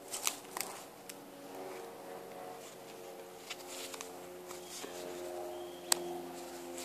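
Scuffling, with sharp clicks and short scratchy rustles, as a kitten and a lorikeet play-fight on a couch. The loudest click comes about six seconds in, and faint sustained tones run underneath.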